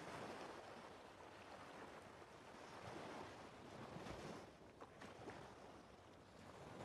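Near silence: a faint, even rushing noise with no tones or distinct events.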